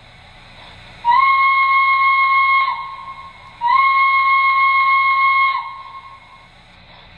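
Sound system of an MTH 3-rail O-scale EST 241A steam locomotive model sounding its shrill, high-pitched European steam whistle: two long blasts, each sagging slightly in pitch as it cuts off, as the engine is about to move out. A faint steady hum runs underneath.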